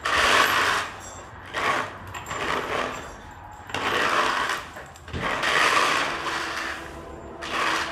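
Manure bedding being scraped up from the floor with a hand tool, in six rough scraping strokes about one every second and a half.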